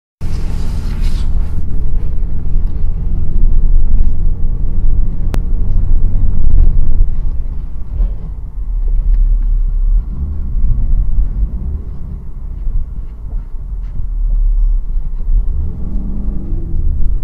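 Steady low rumble of a car's engine and tyres, heard inside the cabin while driving slowly on a snowy dirt road, with a single sharp click about five seconds in.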